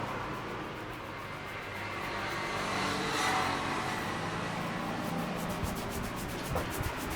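Street traffic noise, with a vehicle passing and swelling to its loudest about three seconds in.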